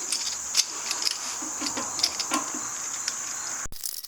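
Crickets chirping steadily in the background, with scattered light clicks and taps as the glue-tab dent puller is worked on the metal gas tank. The cricket sound cuts off abruptly near the end.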